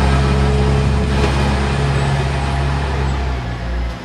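A large engine idling with a steady low hum, easing off slightly near the end.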